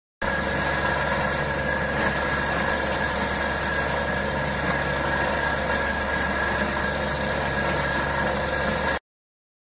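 Borewell drilling rig running, a steady engine drone that cuts off abruptly about nine seconds in.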